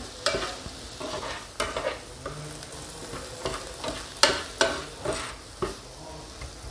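Spatula stirring and scraping diced onion and red pepper around a nonstick frying pan in irregular strokes, the vegetables sizzling as they fry.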